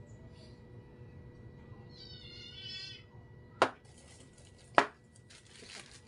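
A brief high, wavering cry about two seconds in, then two sharp knocks about a second apart, followed by the rustle of cotton wool being pulled apart.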